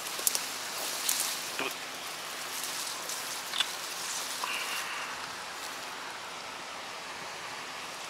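A steady, even hiss like running water, with a few light clicks scattered through it.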